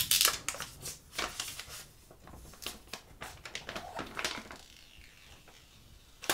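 Plastic protective film being peeled off a new smartphone by its pull tab, crinkling and rustling in irregular bursts, loudest in the first second and dying down after.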